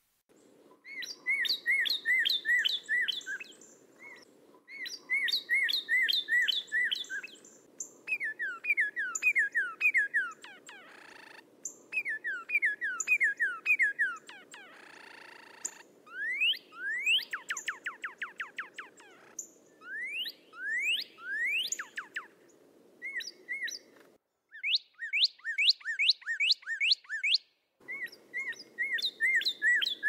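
Cardinal song: loud, clear whistled phrases, each a run of several repeated slurred notes given a few times a second, with some phrases of quick rising upslurs. A faint steady low hum lies underneath and briefly cuts out near the end.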